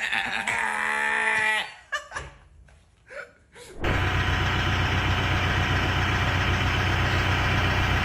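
An engine running steadily, cutting in abruptly about four seconds in. Before it there is a short pitched sound, then a few faint clicks.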